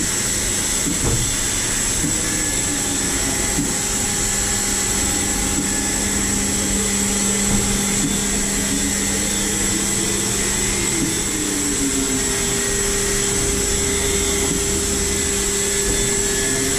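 DMG MORI CTX beta 1250 TC turn-mill machining centre running inside its enclosure: a steady mechanical hum with a high whine, and tones that slowly rise and fall midway through as the milling head traverses.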